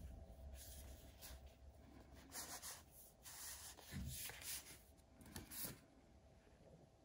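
Faint rubbing and rustling of a cardboard box in a clear plastic sleeve being handled and turned over in the hands, in a few short rubs.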